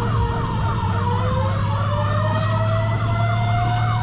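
Fire engine siren on a fast yelp, about four sweeps a second, with a second siren tone slowly rising in pitch, over the steady drone of the truck's engine.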